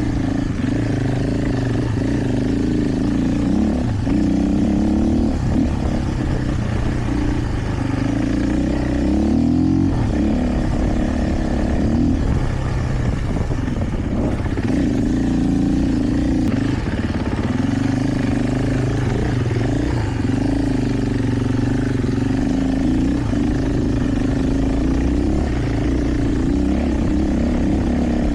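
KTM 450 EXC's single-cylinder four-stroke enduro engine running steadily under throttle, its pitch shifting up and down with the revs, dipping and climbing again about ten seconds in.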